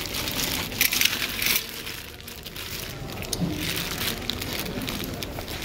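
Clear plastic bag crinkling and crackling as a hand squeezes and turns it, loudest about a second in.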